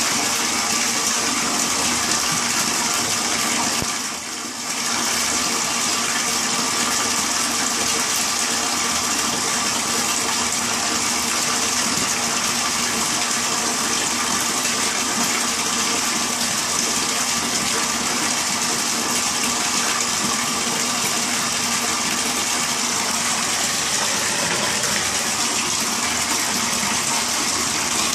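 Water running steadily into a shower tub: a constant hiss that dips briefly about four seconds in.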